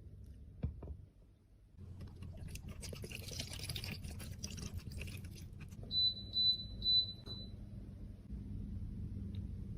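Crackly scraping with quick taps, as of pressed makeup being scraped or crushed, over a steady low hum. Then four short high-pitched electronic beeps, about two a second.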